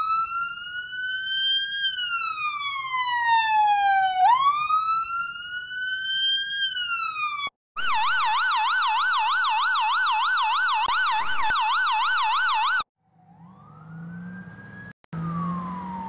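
Recorded ambulance sirens played back one after another. First a slow wail rises and falls about twice. Then it cuts to a fast warble at about three cycles a second, and near the end a quieter siren rises and falls over a low hum.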